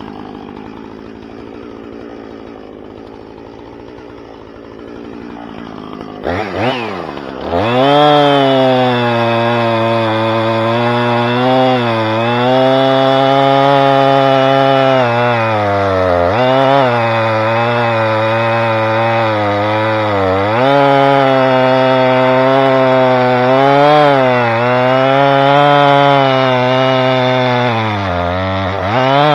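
Two-stroke gas chainsaw idling, then revved sharply to full throttle about six seconds in and held there, its pitch dipping and recovering every few seconds as the chain loads up cutting through red oak rounds.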